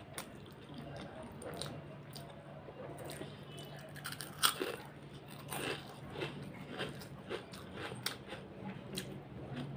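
Close-up eating sounds: fingers squishing rice into chicken curry, a handful taken into the mouth about four and a half seconds in, then wet chewing with many short mouth clicks and smacks.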